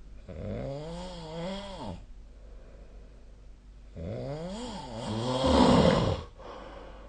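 A sleeping person snoring: two long snores about four seconds apart, each wavering up and down in pitch. The second turns louder and rougher near its end.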